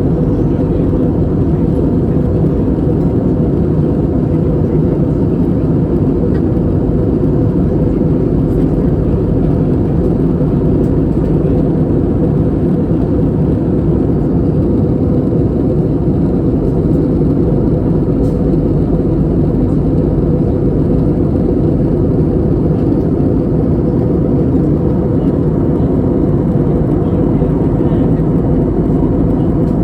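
Steady, unbroken engine and airflow noise inside the cabin of an Airbus A320neo (A320-271N) with Pratt & Whitney PW1100G geared turbofans, a low rush with a faint constant hum.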